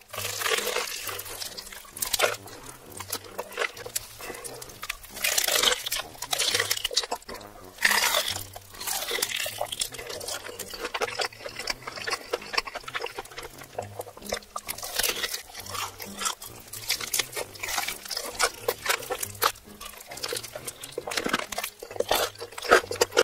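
Close-miked eating sounds: bites into sauced fried chicken drumsticks, then wet chewing and lip smacking, in repeated bursts.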